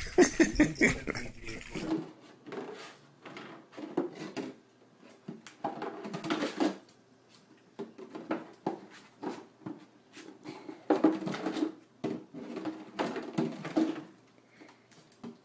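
Irregular knocks and rattles of a plastic jug being pushed by a small dog against a glass door and its pet flap.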